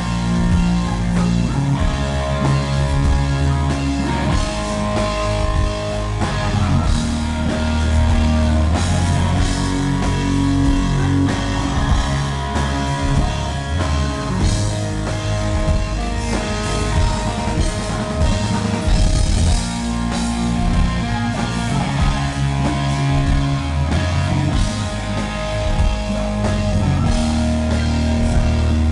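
Live hard rock band playing loud through a venue PA: electric guitar and drum kit over heavy held bass notes, recorded from the audience.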